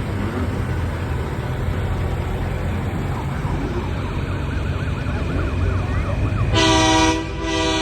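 Semi trucks rumbling, with a faint warbling siren from about three seconds in. About six and a half seconds in, a loud semi-truck air horn blasts, breaks off briefly, and sounds again.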